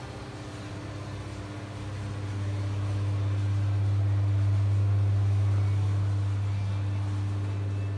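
A steady low machine hum with a faint higher tone over it, growing louder from about two seconds in and easing a little near the end.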